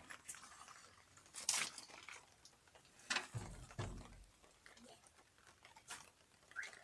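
Faint handling noises of someone fitting a pressure-gauge union to a hydraulic pump: a few sharp clicks and scrapes with quiet rustling between, and a low thud about three and a half seconds in.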